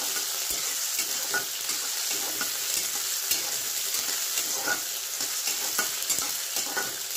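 Chopped onion, tomato and dry red chilli frying in oil in a kadai, sizzling steadily while a spoon stirs them, scraping and clicking against the pan at irregular moments.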